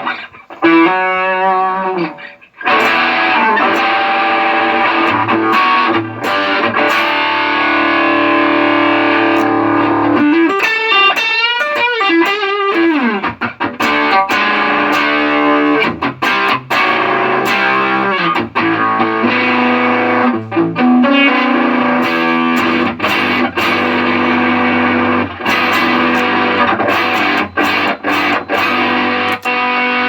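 Electric guitar played through a Line 6 Helix LT multi-effects processor with a distorted tone, the unit working again after cleaning off rain damage. Held chords give way to a wobbling bend that slides down in pitch near the middle, then choppy, clipped strikes through the second half.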